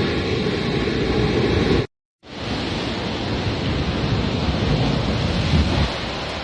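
Steady rushing noise of wind and sea surf, heavy in the low end, cutting to dead silence for a split second about two seconds in.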